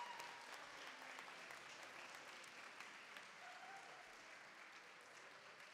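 Audience applause, faint and dying away steadily.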